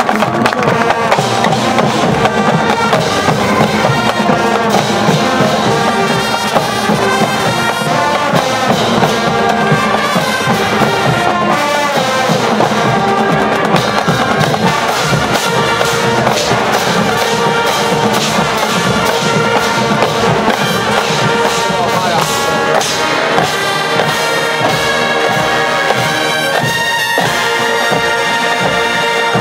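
Marching band playing loudly: trumpets and trombones carry the tune over drums.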